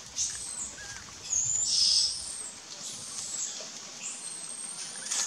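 Several high, thin whistled animal calls, each rising and then holding briefly, about four in a few seconds; the loudest and longest comes near two seconds in.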